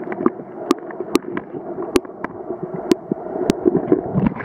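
River current heard underwater: a muffled, dull rush of moving water with frequent sharp clicks and ticks.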